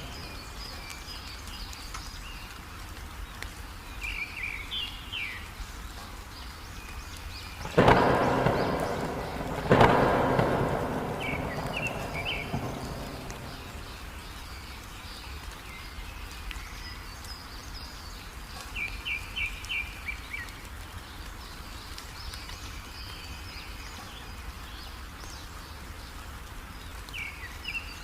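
Steady heavy rain with two sudden thunderclaps about two seconds apart, around eight and ten seconds in, the second fading over a few seconds. Short, quick bird chirps come through the rain every several seconds.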